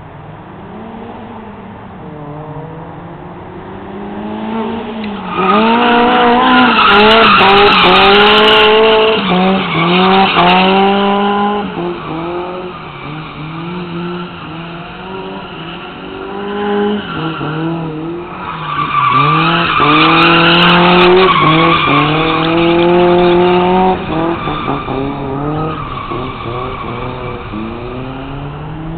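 Toyota AE86's high-compression 16-valve four-cylinder, with mild cams, through a Megan Racing Drift Spec exhaust, revving up hard and shifting several times. The engine note climbs, drops at each shift and climbs again. It is loudest in two stretches, about five seconds in and again near twenty seconds, and runs quieter between them.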